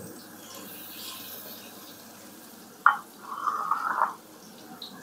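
Chopped garlic sizzling steadily in hot mustard oil in an aluminium karahi. About three seconds in there is a sharp knock, then about a second of scraping as a wooden spoon works against the pan.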